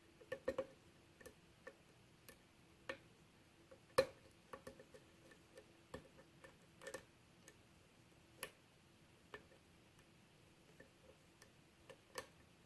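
Lock pick and tension wrench working the pins of a six-pin Euro cylinder lock: irregular small metallic clicks and taps as the hook lifts and sets pins. A few louder clicks come about four seconds in, past eight seconds, and near the end.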